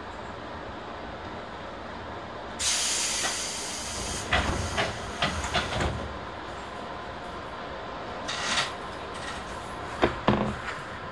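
Electric commuter train standing at a station, heard from the cab: a loud hiss of released compressed air about two and a half seconds in, then a run of clunks and knocks, a shorter hiss near eight seconds, and two sharp clunks near the end, the train's air equipment working as it readies to depart.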